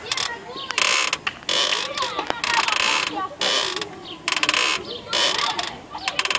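Hyundai Solaris clutch creaking as it is worked over and over: a crackling creak about once a second, each lasting about half a second, with short squeaks in between.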